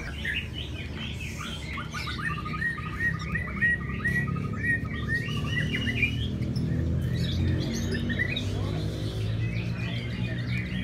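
Lovebirds chirping in a fast run of short, shrill notes, thickest over the middle seconds, over a steady low hum.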